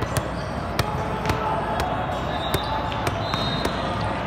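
Volleyballs being hit and bouncing on the court floors around a large hall with many courts: irregular sharp thuds about every half second to second, over steady crowd chatter.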